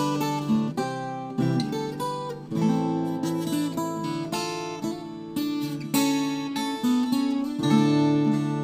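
Solo acoustic guitar playing an instrumental Christmas tune, with picked melody notes over strummed chords that change about once a second.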